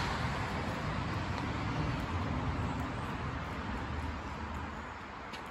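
Motor vehicle noise: a steady low rumble and hiss that slowly fades away.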